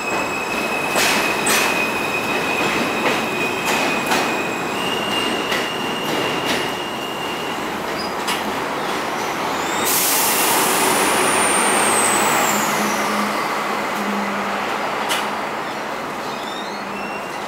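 R160 subway train pulling out of the station and moving away. A steady high electric whine and a string of wheel clicks over rail joints come first; about ten seconds in, a louder rush with a high wheel squeal takes over, then fades as the train recedes.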